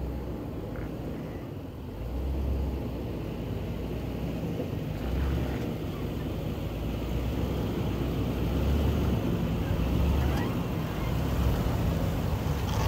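Land Rover LR4 driving slowly off-road: a steady low engine and drivetrain rumble that swells a little now and then.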